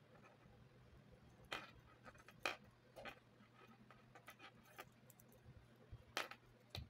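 Faint, irregular small clicks and taps of hand work with a crochet hook and yarn, over a low steady hum.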